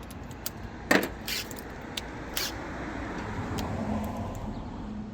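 Sharp metallic clicks and clinks of screws and hand tools on the washer's metal transmission and brake assembly as two 5/16 screws are started, over a low rough scraping of parts being handled.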